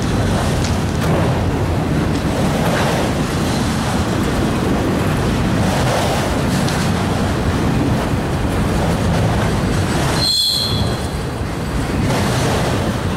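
Autorack freight cars rolling past at speed, a steady rumble of steel wheels on rail, until the last car goes by near the end.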